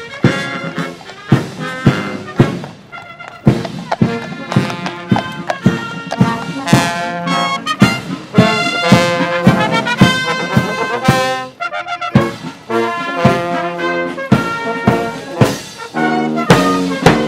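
Marching band playing: trumpets and trombones carrying a tune over regular drum beats.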